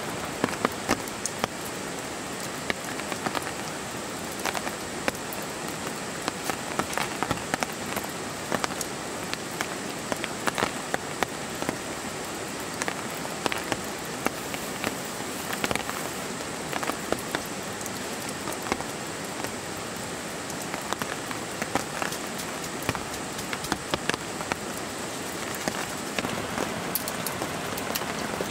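Rain falling steadily, with many separate drops ticking sharply and irregularly on nearby surfaces.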